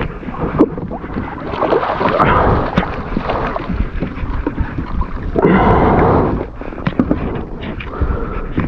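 Water sloshing and gurgling against a kayak, with scattered small knocks and clicks and a louder rush of water lasting about a second, starting about five and a half seconds in.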